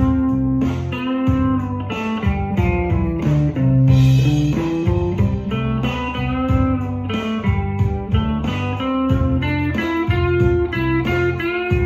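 Stratocaster-style electric guitar playing a run of quick single-note lead lines, over a steady beat and sustained low bass notes.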